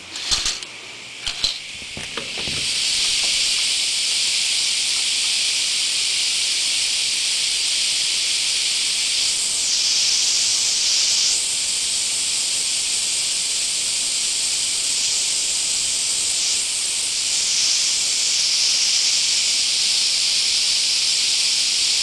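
A window slides open with a couple of knocks, and about two seconds in a loud chorus of Japanese cicadas (semi) comes in: a dense, steady, high-pitched buzzing hiss that swells and eases slightly now and then.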